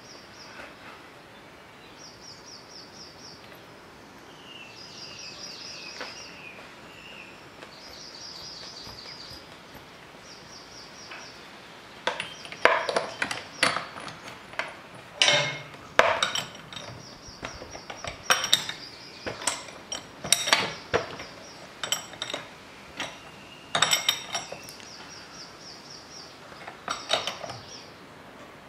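Metal tools clinking as a new spark plug is tightened: from about twelve seconds in, a spanner and plug socket give many irregular sharp clicks and clinks. Before that, birds sing in short repeated high phrases every couple of seconds.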